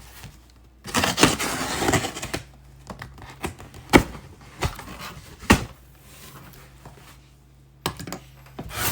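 Cardboard box and packaging being handled and opened: a stretch of rustling about a second in, then several sharp knocks and taps.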